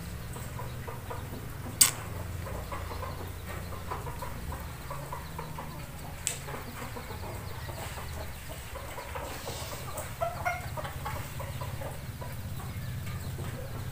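Faint bird calls over a low steady rumble, with a sharp click about two seconds in and a lighter one around six seconds.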